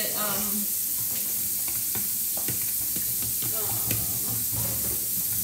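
Fork beating eggs in a plastic bowl: quick, irregular clicks and scrapes of the tines against the bowl.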